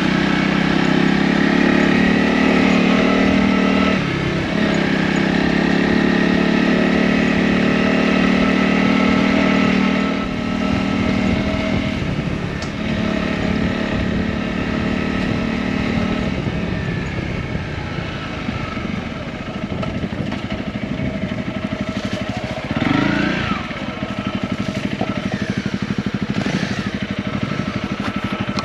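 Honda CRF250's single-cylinder engine running as the dirt bike is ridden along. It runs steady and strong for the first half, then settles to lower revs, with a short rise in revs about two-thirds of the way through.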